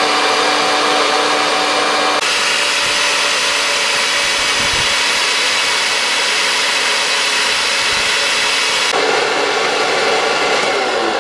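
DeWalt DW735 thickness planer, fitted with a Byrd Shelix helical cutterhead, running and planing boards: a loud, steady rushing machine noise. The sound changes abruptly about two seconds in and again near nine seconds.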